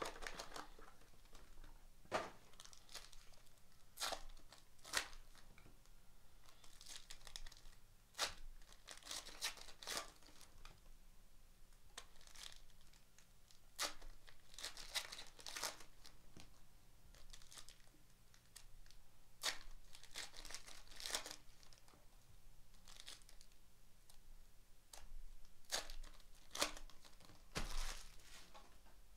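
Foil trading-card pack wrappers being torn open and crinkled by hand: a series of short, sharp rips and crinkles at irregular intervals.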